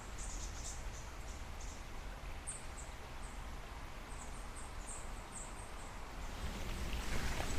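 A small bird's high, thin chirps repeating again and again, over the low steady background of the forest. Near the end, footsteps on the earthy trail grow louder.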